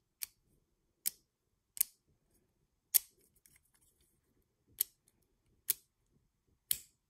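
World Spriggan Beyblade Burst top clicking as its layer is twisted against the Unite Dash driver's burst-lock teeth: about seven sharp, separate clicks, roughly a second apart. The stiff clicks are the sign of strong teeth, which hold the layer tightly.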